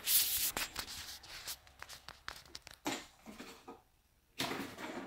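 A cat pawing and scratching at a cardboard box, a quick run of papery scrapes and taps, a short pause, then another scrape near the end.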